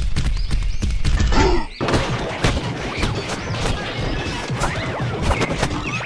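Cartoon-style fight sound effects: a rapid string of crashes, thuds and whacks over background music.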